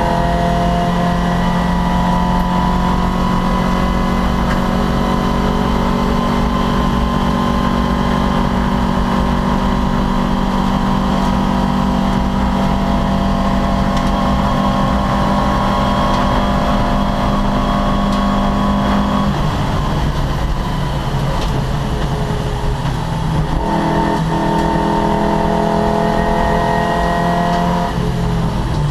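Racing Opel Kadett C engine running hard at a steady, slowly rising pitch. About two-thirds of the way through the note drops, as the driver lifts or shifts. It picks back up a few seconds later and drops again near the end.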